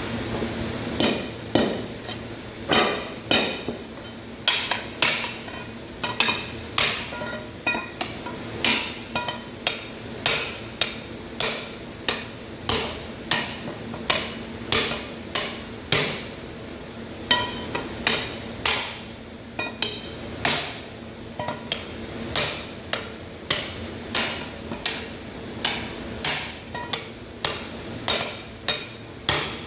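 A hammer striking steel, with ringing metallic blows in a steady rhythm of about one and a half a second.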